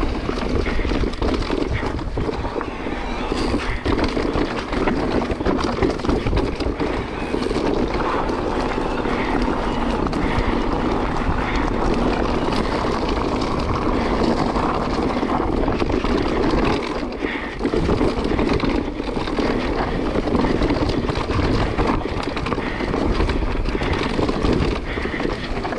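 Steady rushing noise of a Decathlon Stilus mountain bike's tyres on a dirt trail at speed, with wind on the microphone.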